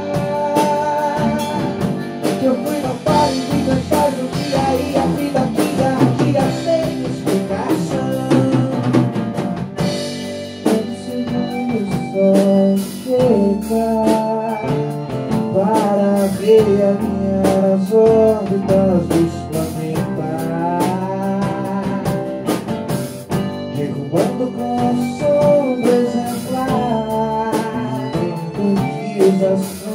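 A small live band playing a mid-tempo rock song on acoustic guitar, drum kit, keyboard and accordion, with a man singing into a microphone.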